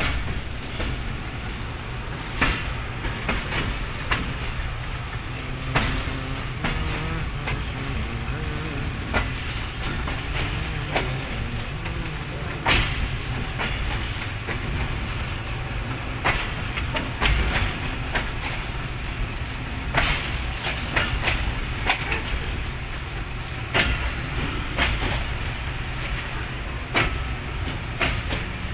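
A train running, heard from on board: a steady low rumble with irregular clacks of the wheels over rail joints.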